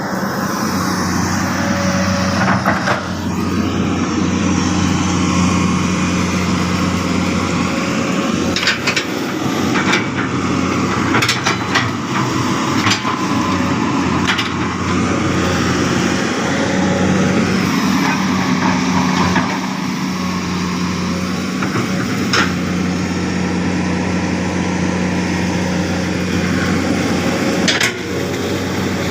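Heavy machine's engine running steadily under an operator's control, with scattered sharp knocks and cracks, several close together in the middle and single ones later.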